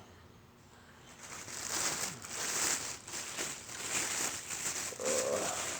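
Food packaging crinkling and rustling as it is handled and opened, starting about a second in and going on in irregular crackly bursts.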